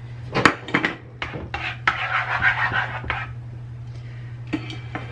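A cooking utensil scraping and knocking against a nonstick frying pan as eggs are scrambled: a run of sharp clicks and taps, with a longer stretch of scraping about two seconds in. A steady low hum runs underneath.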